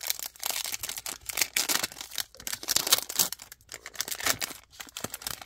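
Foil-lined wrapper of a 2023 Absolute Football trading-card pack being torn open and peeled back by hand: a steady run of crinkling, crackling rustles.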